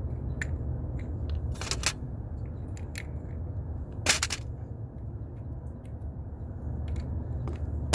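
Scattered sharp clicks and small rattles of airgun pellets and a magazine being handled while the magazines are reloaded, a few strokes close together, the loudest about four seconds in. A steady low rumble runs underneath.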